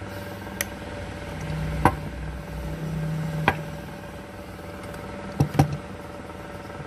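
A handful of sharp metal clicks and taps, about five in all, two close together near the end, as a Zippo lighter case is handled and cleaned. Under them runs a steady low mechanical hum that swells for a couple of seconds early on.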